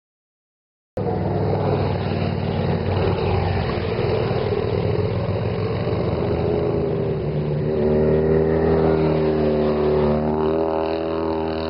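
Several motorcycles riding through a hairpin bend, their engines rising and falling in pitch as they approach and pass. The sound cuts in about a second in after a brief silence and is loudest as a bike leans through the bend close by.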